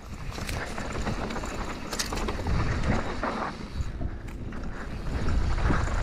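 Mountain bike (a Rocky Mountain Altitude) rolling fast down dirt singletrack: a steady low rumble of tyres on the trail, with scattered clicks and knocks from the chain and frame rattling over bumps.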